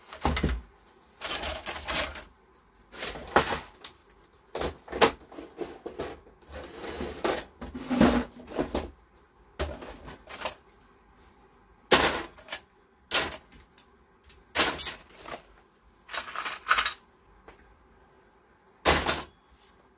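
Old computer parts, plastic storage tubs and circuit boards, handled and set down on a wooden workbench: irregular knocks and rattles about every second or so.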